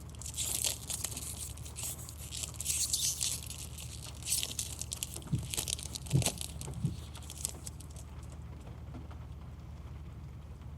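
Foil wrapper of a Pokémon TCG booster pack being torn open and crinkled as the cards are pulled out. The crinkling dies away about eight seconds in.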